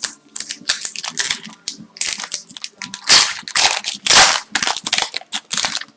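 Foil wrapper of a hockey card pack crinkling in the hands, with cards being handled, in an irregular run of rustles and crackles.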